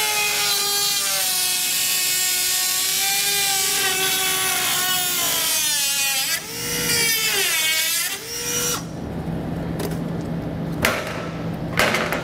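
Cordless Dremel rotary tool cutting through a plastic underbody gravel guard: a high whine whose pitch sags and wavers as the bit bites into the plastic, stopping about nine seconds in. A couple of light knocks follow near the end.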